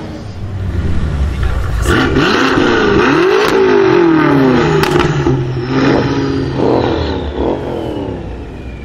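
BMW M6 Gran Coupé's twin-turbo V8 revved hard while standing, through a loud custom Eisenmann exhaust: long revs rising and falling, with sharp exhaust bangs about two, three and a half and five seconds in. Shorter throttle blips follow, then it drops back toward idle.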